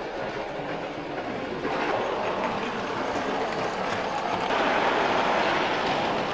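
Model railway steam locomotives and rolling stock running along the layout's track, a steady noise of wheels and motors that gets louder about two seconds in and again a little past halfway.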